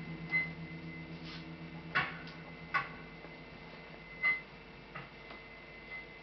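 About half a dozen light, scattered clicks and knocks at irregular intervals, a few with a brief high ring, over a faint steady low hum.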